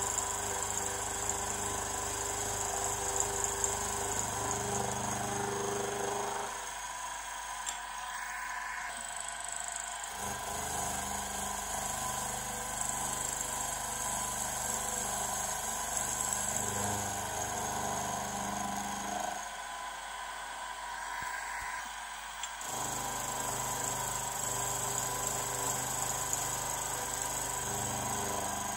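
Benchtop milling machine running, its end mill cutting the flanges of a cast chimney base flat: a steady machine whine and cutting noise. The lower hum drops out twice for a few seconds.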